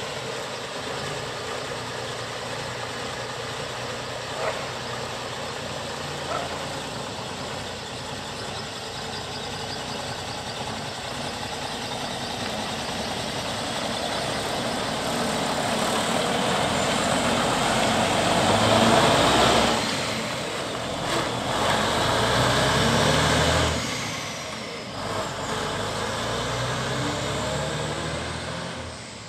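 Diesel engine of an early-1980s ERF heavy recovery truck running and pulling away. It grows louder under throttle toward the middle, with a second loud stretch a few seconds later, then eases off as the truck moves away.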